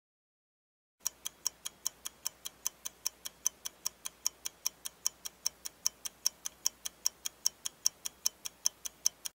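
Mechanical watch ticking: crisp, evenly spaced ticks, about five a second, starting about a second in.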